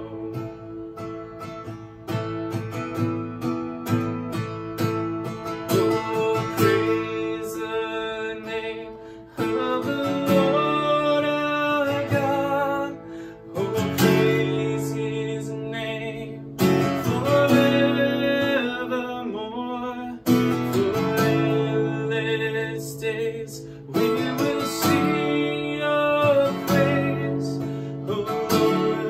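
Acoustic guitar strummed through a worship song's chord progression, the chords changing every few seconds.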